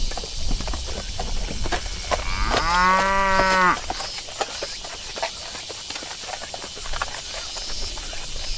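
A cow moos once, a single call about a second long that starts about two and a half seconds in, over scattered light clicking.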